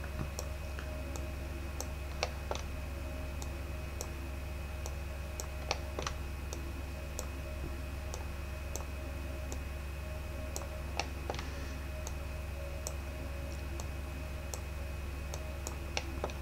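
Computer mouse clicking irregularly, a dozen or more sharp clicks as brush strokes are dragged out, over a steady low electrical hum.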